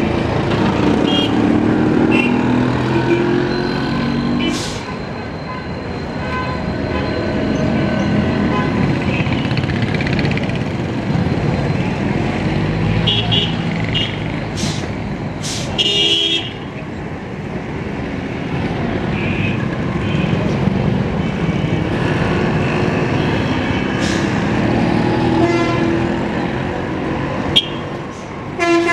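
Busy street traffic: engines of passing cars, trucks and motorbikes, with short horn toots sounding again and again throughout.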